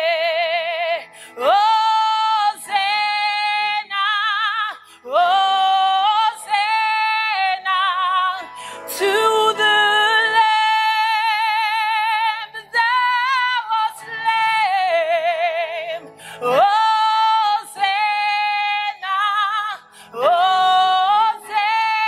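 A woman singing a gospel worship song solo in a high, full voice. She holds long notes with wide vibrato, in phrases of a second or two to about three seconds separated by short breaths.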